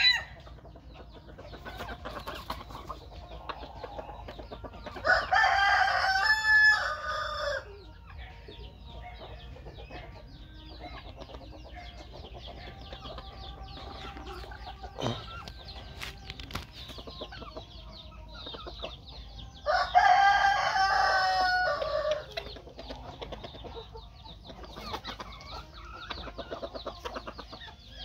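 Five-month-old rooster crowing twice, each crow about two and a half seconds long, with faint clucking between the crows.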